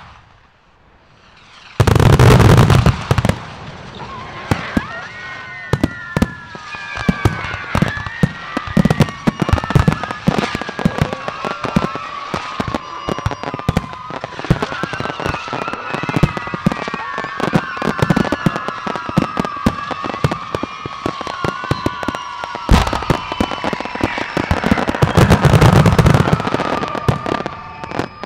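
Mass launch of fireworks rockets: a dense, continuous run of bangs and crackling bursts, with many whistling tones sliding slowly down in pitch over it. A loud volley breaks about two seconds in, and another heavy stretch of bangs comes near the end.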